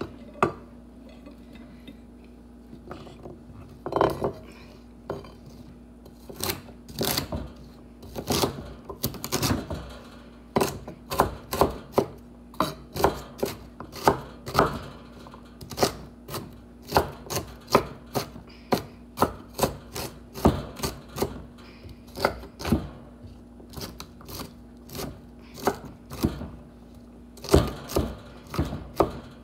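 Kitchen knife chopping a green vegetable on a wooden cutting board: sharp knocks of the blade on the wood, scattered at first, then about two steady strokes a second from about a third of the way in.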